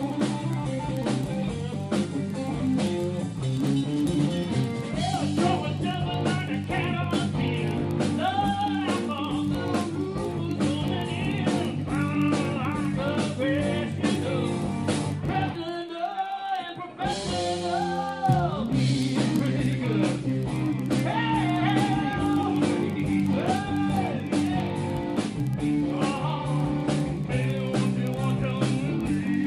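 Live rock band playing a song: electric guitar, bass and drums under a singer. About halfway through, the bass and drums drop out for about a second, then the full band comes back in.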